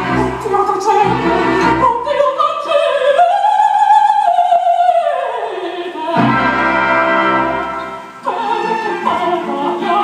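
Opera music with a singer. About three seconds in, a long note is held, then glides down, and the music dips briefly near the eight-second mark.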